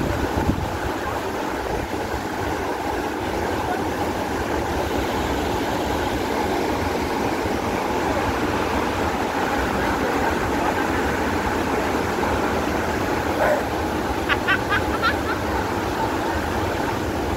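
Nyahururu Falls rushing steadily, a dense unbroken wash of falling water. A few short high chirps come about fourteen seconds in.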